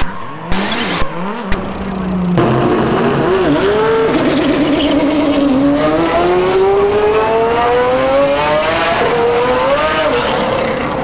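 Car engine sound effect. After about two seconds of short, choppy bursts, the engine note rises steadily for several seconds, like a car accelerating, wavering a little near the end.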